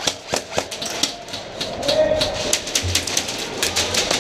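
Airsoft gunfire indoors: a rapid, irregular string of sharp clicks and snaps from airsoft guns firing and BBs striking the walls, several to the second.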